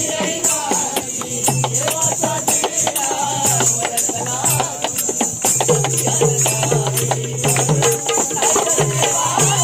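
Live dholki drumming in a fast, busy beat, with jingling rattle-like percussion and voices over it.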